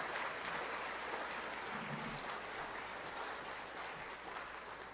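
Audience applauding, a dense patter of many hands clapping that tapers off toward the end.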